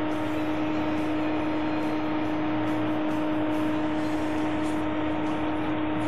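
Belarus MTZ-80 tractor's diesel engine running steadily at constant revs close by: an even drone with a constant-pitch hum over it.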